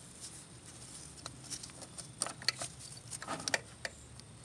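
Scattered light clicks and taps from a gloved hand handling the throttle cable and its fittings, irregular and faint.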